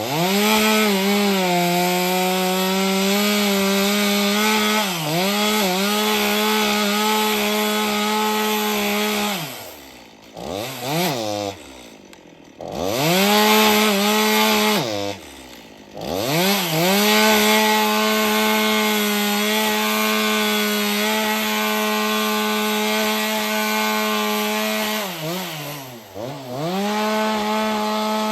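Two-stroke chainsaw on a chainsaw mill ripping lengthwise through a log at full throttle, with a steady cutting hiss. The engine pitch dips several times, and twice in the middle it falls nearly to idle before revving back up.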